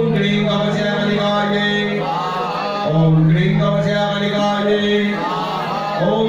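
A man chanting Hindu mantras for a havan fire offering, in long phrases on a nearly steady pitch, with a short breath break about three seconds in.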